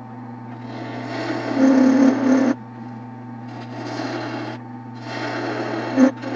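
Wood lathe running with a steady hum while a tool is worked against the spinning Osage orange, in three scraping passes of about a second or two each, the first the loudest. A sharp knock near the end.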